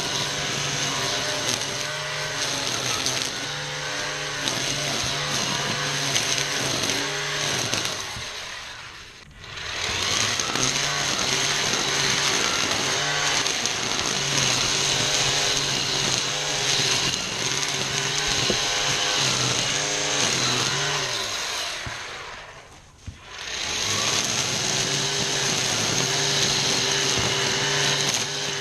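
ECHO 58V battery-powered string trimmer running at speed and cutting tall weeds and grass, a steady motor and line whir with some uneven texture from the cutting. Twice, about nine seconds in and again near the end, the trigger is let off: the trimmer winds down, falling in pitch, then spins back up.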